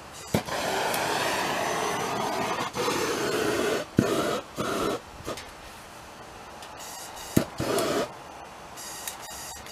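Hand-held propane torch being clicked on and burning with a loud hiss in several bursts, the longest about two seconds, each starting with a sharp click, over a faint steady background hum.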